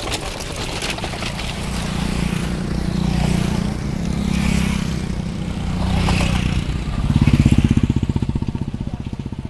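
Motorcycle engines running as several bikes ride past close by, one passing loudest about seven and a half seconds in with a rapid pulsing exhaust before fading. At the start, the hooves and carts of racing horse carts clatter by.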